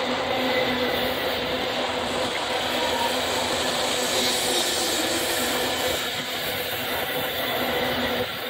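Loaded iron-ore gondola cars of a long freight train rolling past close by: a steady rumble and rattle of steel wheels on the rails, with a few faint steady whining tones over it.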